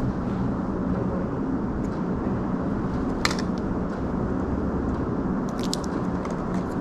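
Steady low rumbling noise with a sharp click about three seconds in and a few lighter clicks near the end.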